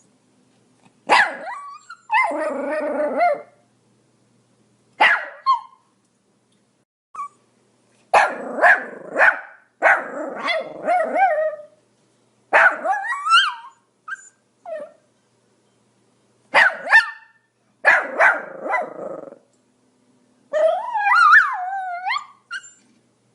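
Pomeranian barking in short bursts with pauses between: single sharp barks and quick runs of several barks. Near the end one longer stretch slides up and down in pitch, like a whining yelp.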